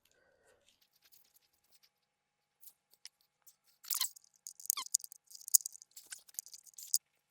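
Close crinkling and crackling handling noise: a dense run of sharp clicks starting about four seconds in, with a short squeak among them.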